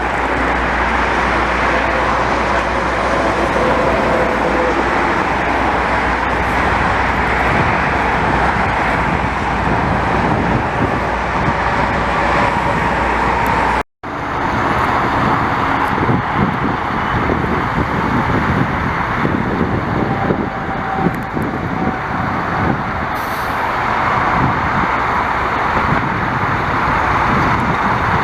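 Steady highway traffic noise, a constant wash of tyres and engines, with wind rumbling on the microphone. About halfway through, the sound drops out for a moment.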